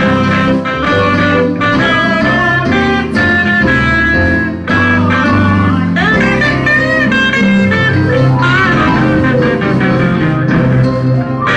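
Live church music led by electric guitar, with bending, bluesy lead lines over a bass line.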